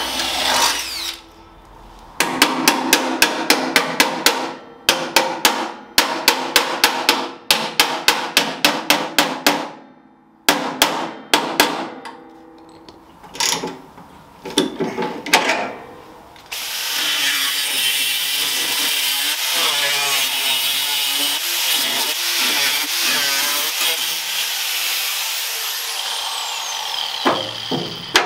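A cordless drill runs briefly in sheet steel. Then a hammer taps a bent steel rod fitting into the drilled hole in quick runs of blows, about four a second, followed by a few single strikes. About sixteen seconds in, an angle grinder with a flap disc starts and grinds steadily on the steel body panel, stopping near the end.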